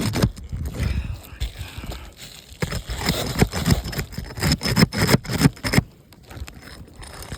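Brittle asphalt roof shingles being pried and pulled loose: a rapid run of short scrapes and cracks as the sealant bond tears the shingle mat, easing off about six seconds in.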